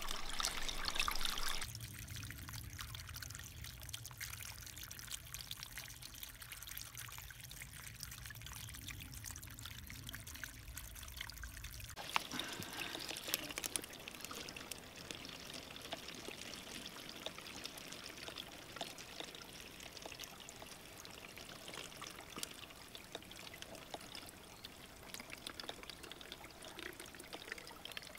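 A small spring trickling out of a rock-lined outlet, a thin steady run of water. From about twelve seconds in it pours into a plastic bottle held under the flow. A low rumble sits underneath until then.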